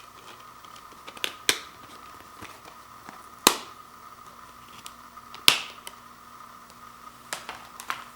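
About six sharp plastic clicks and taps from handling a Blu-ray case and its discs, irregularly spaced, the loudest about three and a half and five and a half seconds in.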